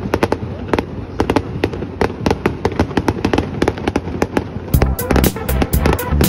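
Fireworks crackling and popping in quick, irregular succession, with deeper booms joining in from about five seconds in.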